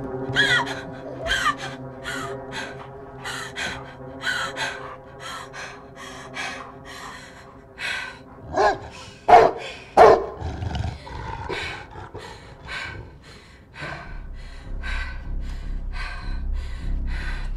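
A rottweiler barking repeatedly and fast, a bark every fraction of a second, with the loudest barks about nine and ten seconds in. A low rumble comes in near the end.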